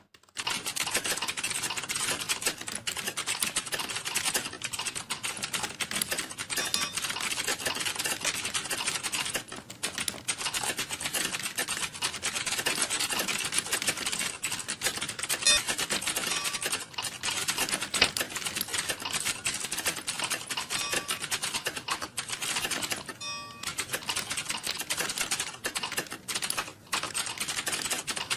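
Fast continuous typing on a computer keyboard, keys clicking in a dense stream at a test-taking pace of about 33 words per minute, with a few short pauses.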